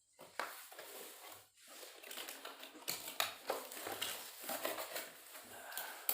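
Pedal packaging being handled and opened, rustling with irregular small clicks and crinkles.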